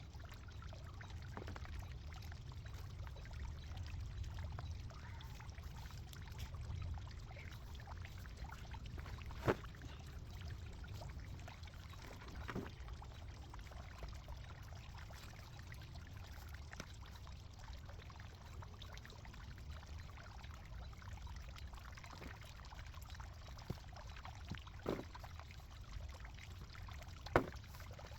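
Digging in garden soil: loose dirt shifting and spilling steadily, with a few sharp knocks, the loudest near the end.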